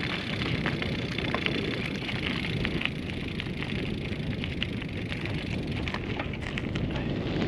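Vehicle tyres rolling over loose gravel: a steady crunch dotted with many small pops and clicks of stones.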